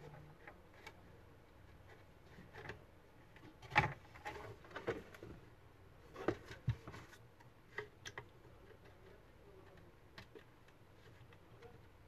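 Hands handling an opened plastic Bluetooth speaker housing and plugging its wire connectors: scattered light clicks and knocks, the loudest about four seconds in.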